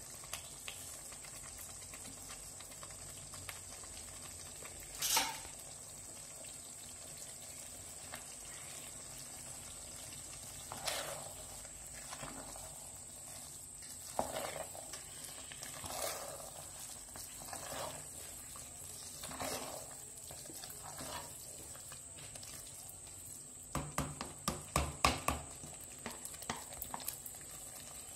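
Spoon or ladle stirring and scraping food in a cooking pot, a stroke about every second, over a faint steady sizzle; a quick run of knocks on the pot comes near the end.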